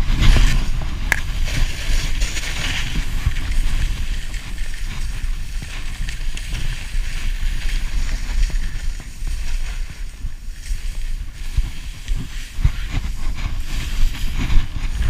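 Skis hissing and sliding through powder snow on a fast descent, over a steady low rumble of wind buffeting the camera microphone, with a few brief knocks.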